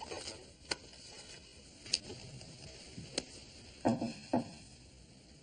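Handling noises of a man at his office desk: three sharp clicks about a second apart, then two short voice-like sounds, a grunt or breath, near the end, over faint room hiss.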